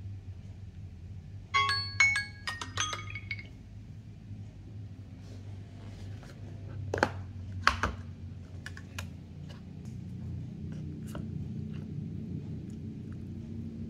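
Smartphone timer alarm going off as the countdown ends: a quick run of bright chiming tones for about two seconds. Then two sharp clicks around the middle, followed by light scattered clicks of a plastic spoon stirring instant porridge in a paper cup, over a low steady hum.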